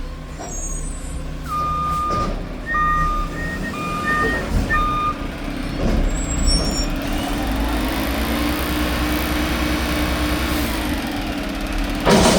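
Mack McNeilus front-loader garbage truck's reversing alarm beeping about five times, then its engine revving up and holding before settling back. A loud bang sounds just before the end.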